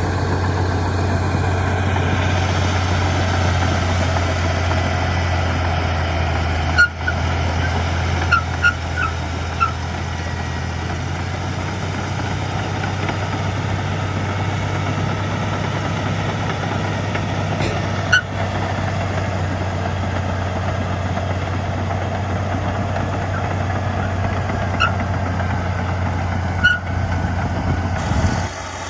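Heavy diesel earthmoving machinery running steadily, a deep engine hum with a few sharp metallic knocks scattered through; the engine sound drops near the end.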